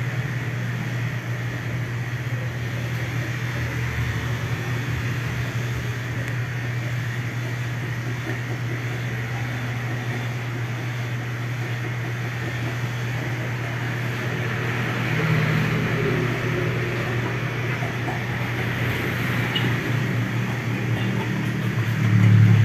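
Electric pet grooming clipper running with a steady hum as it cuts through a chow chow's thick coat, swelling louder briefly about fifteen seconds in and again near the end.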